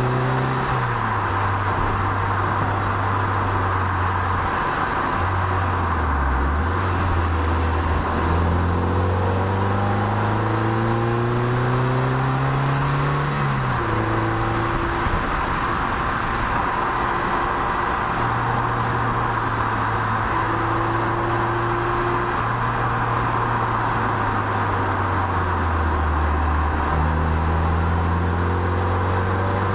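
Toyota MR2 roadster's four-cylinder engine heard onboard on a downhill run, its revs climbing slowly and then dropping sharply several times as gears change, over steady wind and road noise.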